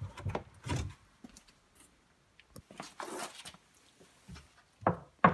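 PVC pipe and fittings being handled against plastic tubs: scattered light plastic knocks, a brief scraping rub about three seconds in, and a sharp knock just before the end, the loudest.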